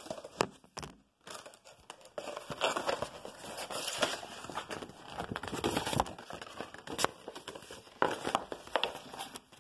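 Rustling and crinkling of handled paper and packaging, as a poster is brought out and unrolled, with scattered small clicks and knocks close to the microphone.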